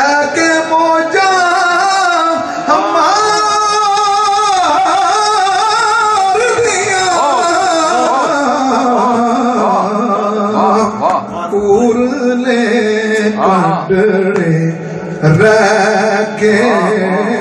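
A man singing a slow, ornamented Punjabi devotional melody with long held, wavering notes over a steady low drone.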